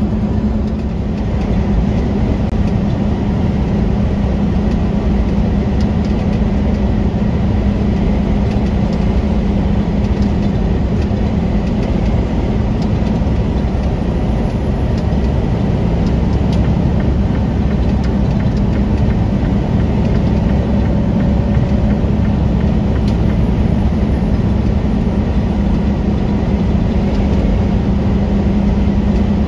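Steady drone of a semi truck's diesel engine and road noise, heard from inside the cab while cruising at an even speed.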